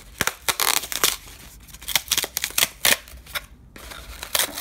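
Corrugated cardboard wrapping being pulled and torn apart by hand: a rapid series of sharp crackles and short rips, with one longer tearing rasp about a second in.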